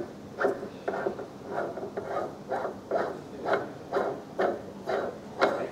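Retaining nut being spun by hand onto the threaded shaft of a brake disc lathe: a steady rhythm of short metallic scrapes about twice a second, one with each turn of the nut along the threads.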